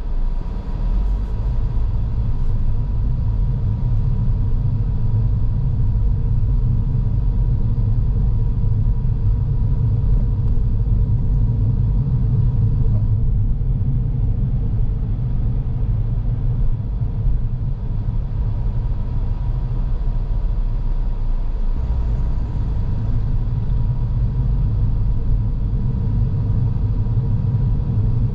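A car driving along at a steady pace: a continuous low rumble of engine and tyres on the road, with a faint steady high hum over it.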